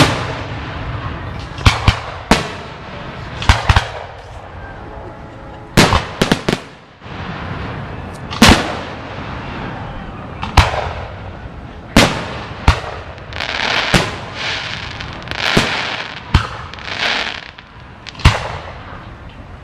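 Aerial firework shells bursting in a display: about fifteen sharp bangs at uneven intervals, some in quick pairs, with stretches of hissing between the bangs in the later part.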